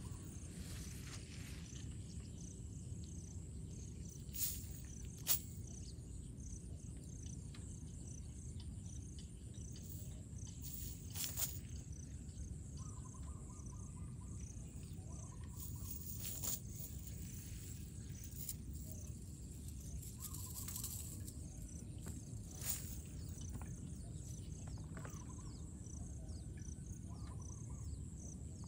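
Insects chirping steadily: a continuous high buzz with an evenly repeating pulsed chirp beneath it, over a low rumble. A few brief sharp clicks stand out, the loudest about five seconds in and again about eleven seconds in.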